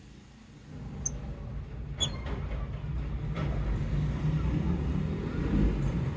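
A steady low rumble that swells up about a second in and stays the loudest sound, with two brief high chirps from lovebirds over it, about one and two seconds in.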